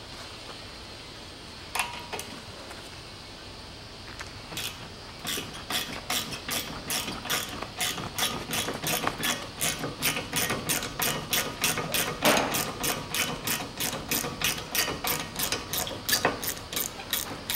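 Ratchet wrench with a 7 mm hex bit backing out a front brake caliper guide-pin bolt. After a lone click, it starts about four seconds in and keeps up a steady run of clicks, about three a second, with a brief scrape partway through.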